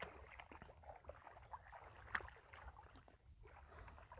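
Faint splashing and lapping of shallow water, with scattered small ticks and one sharper click about two seconds in.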